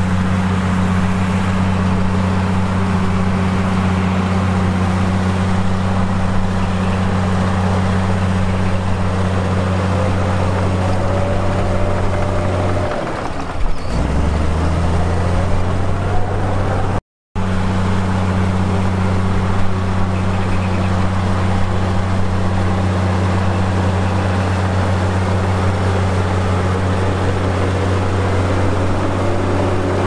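Heavy diesel engine of earthmoving equipment running steadily, with a deep, even drone. A little before halfway the drone drops and shifts pitch, then it breaks off for an instant and resumes. Faint rising whines come and go above it.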